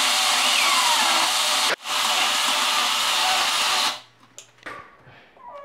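Small personal bullet-style blender motor running at full speed, pureeing mango chunks. It runs in two pulses, dropping out for a moment about two seconds in, then cuts off about four seconds in.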